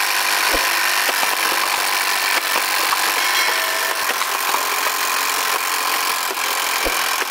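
Motorized Blaze Storm toy ball blaster whirring steadily as it fires soft balls in rapid succession, with light clicks of plastic cups being hit and knocked over.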